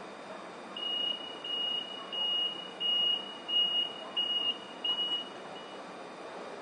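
Door-closing warning beeps of a Siemens Desiro electric multiple unit: about eight short high beeps at one pitch, evenly spaced at roughly one and a half a second, the last one faint, signalling that the doors are about to shut before departure.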